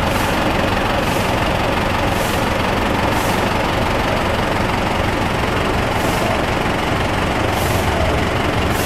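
Engines of parked minibuses (Hong Kong public light buses) idling steadily.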